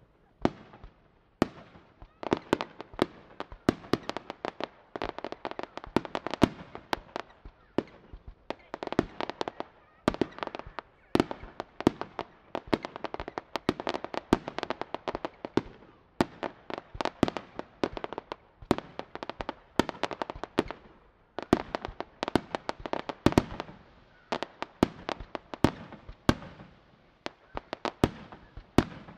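Aerial firework shells bursting in a rapid, irregular barrage of bangs and reports, several a second, coming in waves with brief lulls.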